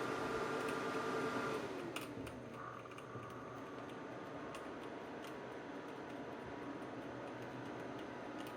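Old case fan in a desktop computer making an abnormal whining noise: a steady tone that drops in pitch and dies away about a second and a half in, with a click just after. A quieter steady fan hum with faint ticks follows.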